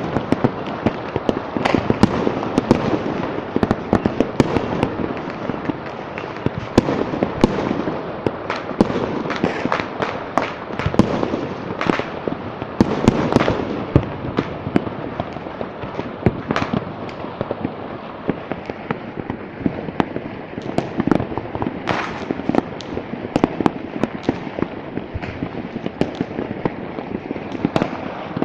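Dense, unbroken barrage of firecrackers and fireworks going off: many overlapping pops and cracks, with louder single bangs standing out every second or so.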